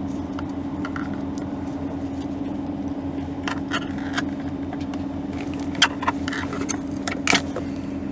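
A plastic Romex cable jacket being slit and pulled apart with the razor side of an IDEAL Lil' Ripper stripper, heard as a string of sharp clicks and crinkles from about three and a half seconds in, the loudest near the end. A steady low hum runs underneath.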